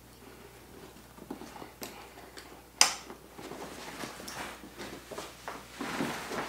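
Stiff polyester-and-TPU waterproof dry bag rustling, its straps and buckles clicking as it is handled and slung onto a back. One sharp click about three seconds in is the loudest sound, with denser rustling after it.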